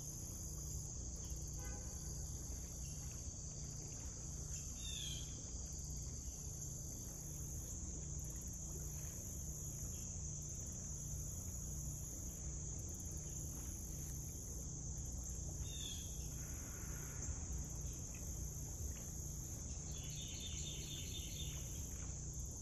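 Steady, high-pitched chorus of insects, crickets or similar, at a pond's edge, with a few short falling bird calls now and then and a brief bird trill near the end, over a low rumble.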